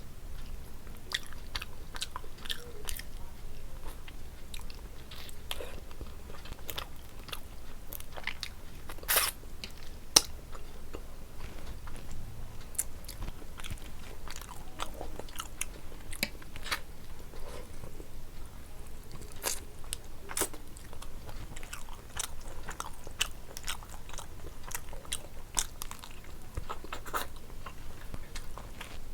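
Close-up eating sounds: a person chewing food, with wet mouth clicks and occasional crunches at irregular intervals. One sharper click about ten seconds in.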